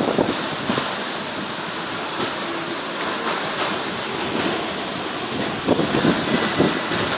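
Steady rush of water from a sailing catamaran's wake and breaking seas in a strong wind of about 35 knots. Gusts start buffeting the phone's microphone again near the end.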